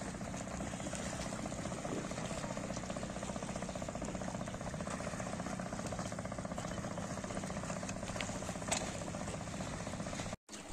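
An engine idling steadily with an even, unchanging hum. It cuts off suddenly near the end.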